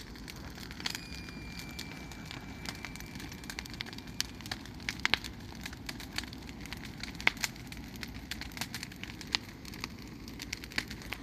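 Bonfire of brush and tree branches burning strongly, with a steady low rush of flame and frequent sharp crackles and pops of burning wood. A faint thin whistle sounds for a few seconds near the start.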